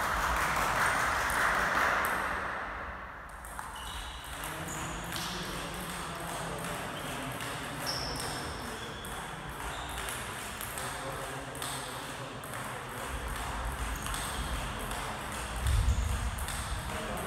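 Celluloid-plastic table tennis ball clicking off bats and the table during rallies, with a break between points. A loud burst of noise fills the first two seconds. Short high squeaks of shoes on the wooden floor come now and then, and a heavy footfall thuds at about 16 seconds.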